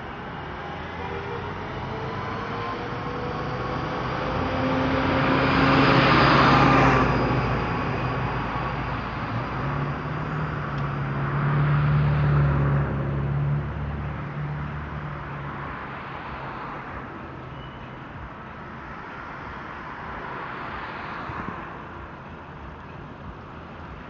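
Road traffic going by: one vehicle passes loudly about six seconds in, a heavier one with a low steady engine hum passes around the middle, and a quieter pass comes near the end.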